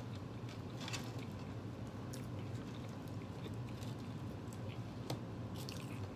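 A person chewing a mouthful of burger and fries with the mouth closed: soft wet mouth sounds with a few small clicks, over a steady low hum.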